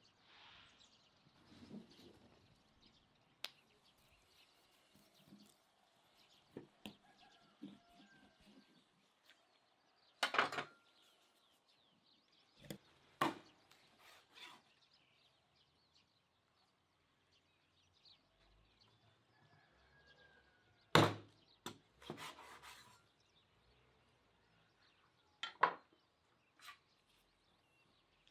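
A large kitchen knife chopping through raw meat onto a wooden cutting board: a handful of sharp chops with long pauses between them. Faint birdsong runs underneath.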